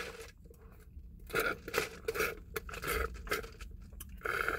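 Ice cubes rattling and clicking in a plastic cup as a drink is sipped through a straw: a quick, uneven run of sharp clicks, with a steadier sucking hiss starting near the end.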